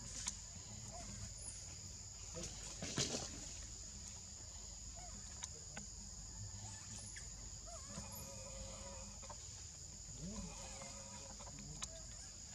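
Steady high-pitched insect drone, with a brief scuffing noise about three seconds in, a few short chirps, and a longer animal call around eight seconds in.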